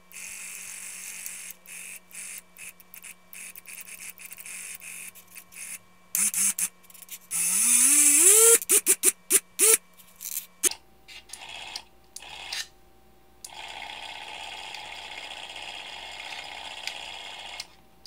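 DC motor under a PWM speed controller whirring in short, choppy bursts. About seven seconds in it spins up with a rising whine, then starts and stops several times, and later runs steadily.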